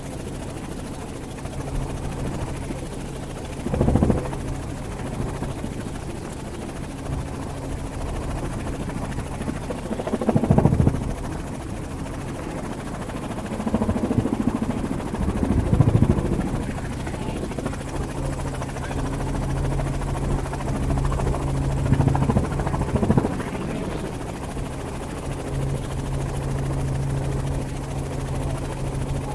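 Helicopter in flight heard from aboard: a steady drone of engine and rotor with a low hum, broken by a few brief louder swells of noise.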